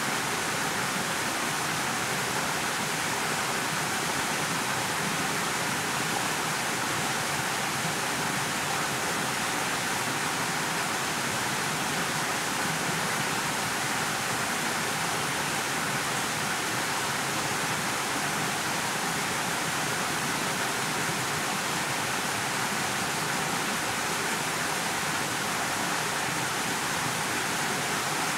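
Steady, unchanging hiss of background noise with no distinct sounds in it.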